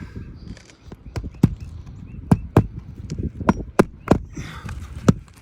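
Irregular sharp knocks and taps on an asphalt shingle roof during a shingle repair attempt, about ten of them from about a second in.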